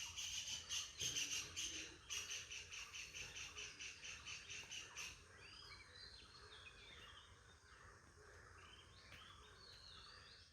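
Birds chirping: a fast, rapidly repeated high trill for the first half, then scattered short chirps and whistles.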